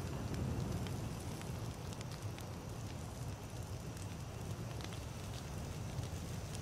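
Wood campfire burning: scattered sharp crackles and pops over a steady low rumble of flame.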